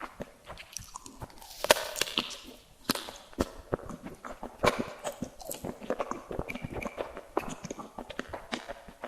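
Close-miked eating of sweets: rapid, irregular bites and chewing with many sharp crunchy clicks, the loudest bite about two seconds in.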